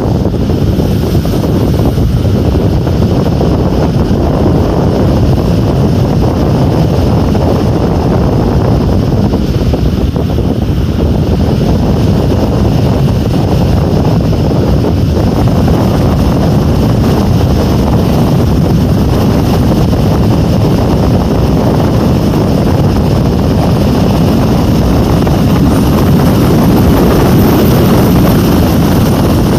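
Typhoon wind blowing hard and without let-up, a dense rushing noise heaviest in the low end, growing a little louder near the end.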